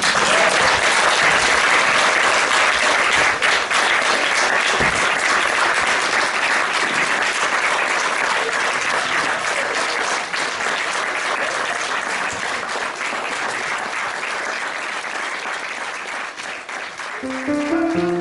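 Audience clapping, a dense steady applause that slowly thins out toward the end. Music with a melody comes in just before the end.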